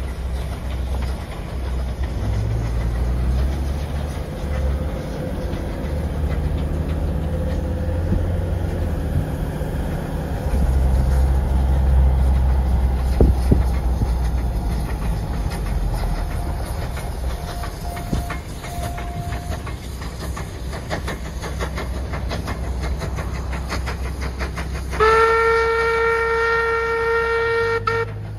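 Steam-hauled passenger train passing, former Commonwealth Railways NM-class locomotive NM25 at its head: a steady low rumble with carriage wheels clicking over rail joints. Near the end the locomotive's steam whistle sounds one steady blast of about three seconds, cut off sharply.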